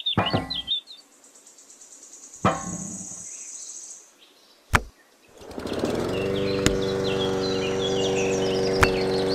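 Knocks as a small model grinding mill is set down, then a small electric motor comes on about halfway through and runs with a steady hum, driving the miniature mill, with a few sharp clicks over it.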